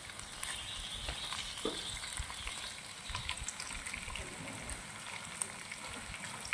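Bugs frying in a hot pan, sizzling steadily with many small crackles.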